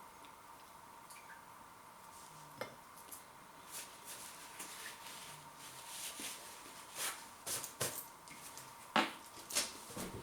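Scattered light clicks and knocks of crockery being handled, coming more often in the second half, the sharpest about nine seconds in, over a faint steady hum.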